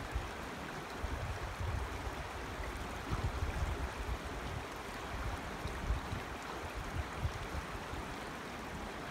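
Creek water running steadily over rocks, with uneven low gusty rumbles on the microphone.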